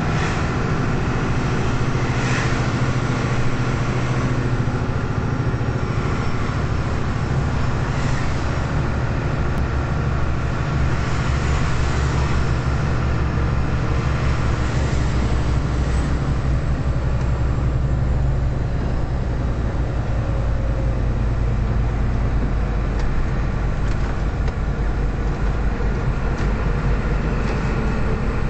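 Inside the cab of a 38-tonne lorry driving on a snowy road: the diesel engine's steady low drone, its note dropping lower about twenty seconds in.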